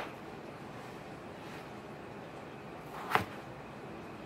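A chef's knife chopping through a raw potato onto a plastic cutting board, a single sharp chop about three seconds in, with quiet room tone around it.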